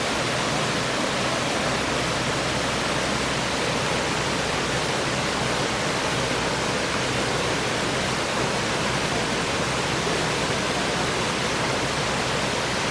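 Waterfall: steady rushing of falling water.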